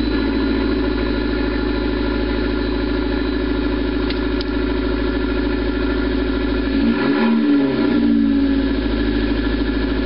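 Fiat 500 Abarth's 1.4-litre turbocharged four-cylinder engine idling steadily at the exhaust tailpipe. About seven seconds in, a short blip of the throttle lifts the pitch and lets it fall back to idle.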